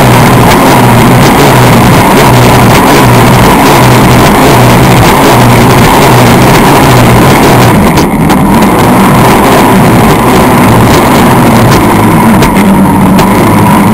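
Vintage wooden racing skiff's engine running hard at speed, very loud and steady, with the low engine note pulsing slightly as the hull rides the water. Heavy wind and spray noise rush over the bow-mounted microphone.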